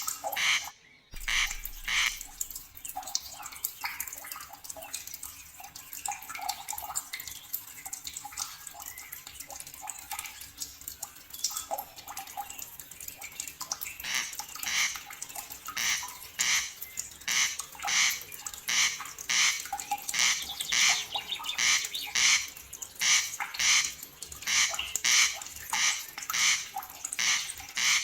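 Wildlife calls repeating in a steady rhythm, about two short calls a second, growing denser and more regular through the second half. The sound cuts out for a moment about a second in.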